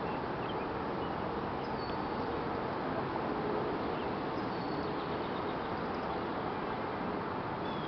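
Steady wind rushing through a stand of tall grass, with a few faint, short high chirps.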